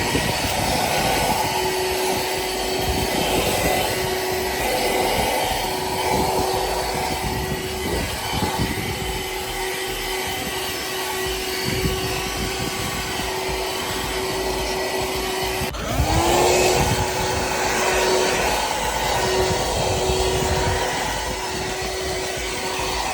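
Michelin MC33375 12-volt, 150-watt handheld car vacuum cleaner running with a steady motor whine and a rush of suction air. About two-thirds of the way through there is a click and a brief dip, then the whine climbs back up to pitch.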